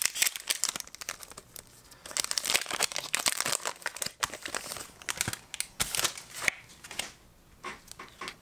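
Foil Pokémon booster pack wrapper crinkling and tearing as it is opened and the cards are pulled out, in quick crackly bursts that die down after about seven seconds.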